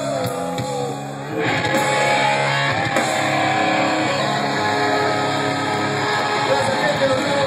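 Heavy metal band playing live with electric guitars. A guitar melody over low sustained notes, then about a second and a half in the sound turns suddenly louder and fuller, with distorted guitars across the whole range.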